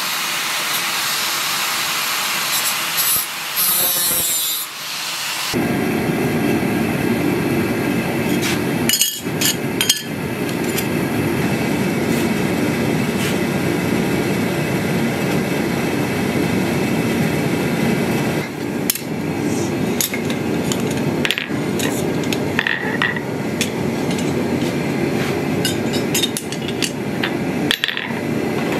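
A hand tool rasps on thin sheet metal for about five seconds. Then a blower-fed gas forge runs with a steady rushing noise, with a few sharp metallic knocks scattered through it.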